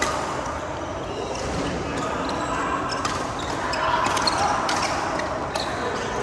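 Badminton rally: racket strings striking the shuttlecock, several sharp hits a second or so apart, over a steady background murmur.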